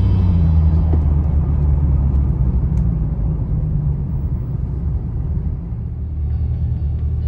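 C4 Corvette's V8 running with its muffler deleted, heard from inside the car while driving: a deep steady exhaust drone that sinks in pitch as the car slows. Near the end it settles into a low, even idle.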